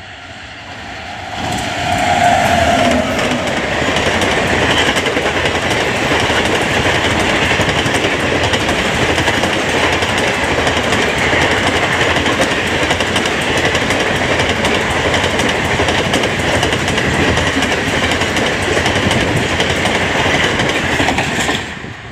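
WAP-7 electric locomotive hauling a long rake of ICF passenger coaches past at speed. The sound swells sharply as the locomotive arrives about a second and a half in. Then comes a steady, loud rush of wheels on the rails as the coaches go by, which cuts off just before the end.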